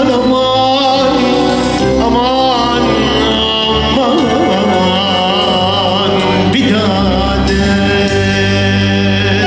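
Male vocalist singing an ornamented Arabic melody with wavering, sliding pitch, backed by electronic keyboards and a steady low bass line.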